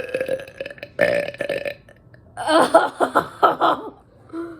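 Person burping loudly from a belly full of carbonated soda: a burp that trails off, a short one about a second in, then a longer, stuttering burp from about halfway in until shortly before the end.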